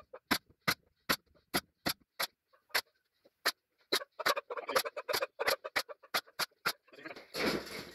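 Nail gun firing nails into the wooden top bars of beehive frames: a quick string of sharp snapping shots, about two to three a second, with a short louder clatter near the end.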